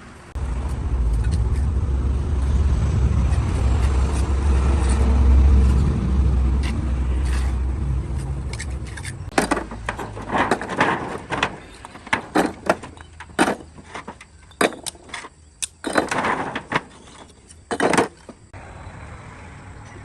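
A heavy low rumble for about nine seconds, then a run of a dozen or so sharp knocks and clacks, irregular and a fraction of a second apart, stopping near the end.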